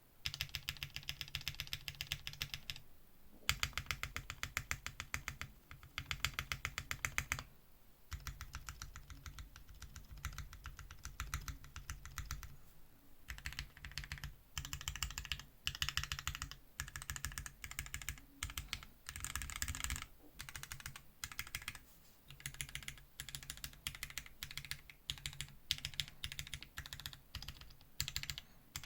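Mechanical keyboard with lubed Tealios V2 linear switches being typed on quickly: rapid key clacks in runs of several seconds, with short pauses between runs.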